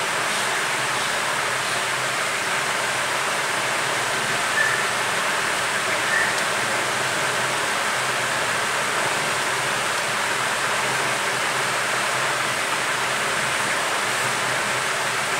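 Steady rushing hiss of moving air, with two faint short high beeps about four and a half and six seconds in.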